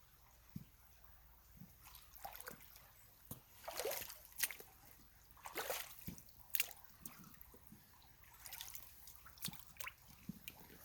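Water splashing and sloshing in short, irregular bursts, loudest about four and six seconds in.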